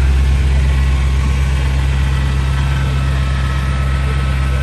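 1976 GMC Motorhome's Oldsmobile 455 V8 idling steadily, running again on its newly replaced fuel pump.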